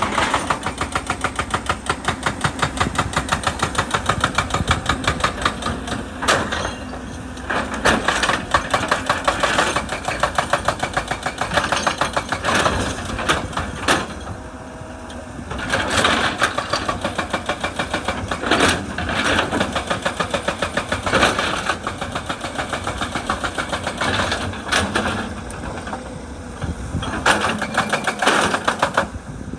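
Excavator-mounted hydraulic breaker hammer pounding rock in long runs of rapid blows, several a second, broken by a few short pauses.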